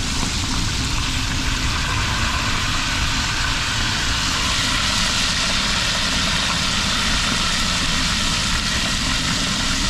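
Snapper frying in hot oil: a steady, even sizzle over a low steady rumble.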